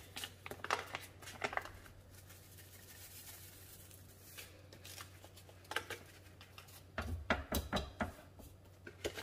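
Faint rustling and crinkling of a paper gravy-mix packet as its powder is shaken out over a raw beef roast. The packet noise comes as scattered soft clicks, then a short cluster of rustles and low knocks near the end.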